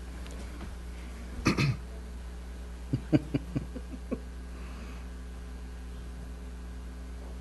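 Quiet room with a steady electrical hum. About a second and a half in, a single cough, then six or so quick soft knocks over about a second.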